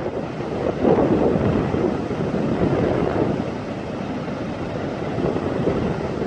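Wind buffeting the microphone over the steady wash of ocean surf breaking on a sandy beach.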